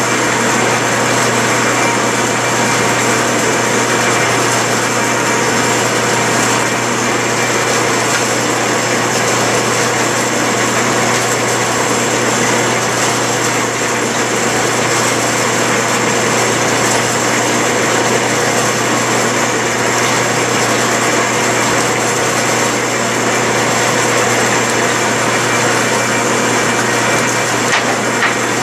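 Clausing metal lathe running steadily under power with an even mechanical whir and hum, during thread-cutting passes with the half-nut engaged on the lead screw.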